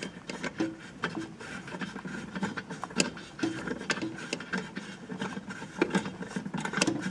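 Small irregular metal clicks and rubbing from fingers turning the regulating nut on the threaded rod under a wall clock's metal pendulum bob. The nut is being unscrewed to lower the bob, which slows the clock.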